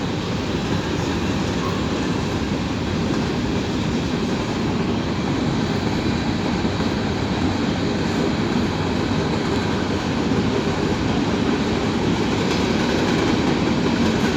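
Norfolk Southern freight train of hopper cars rolling past, a steady rumble of steel wheels on the rails that grows gradually louder as the train picks up speed.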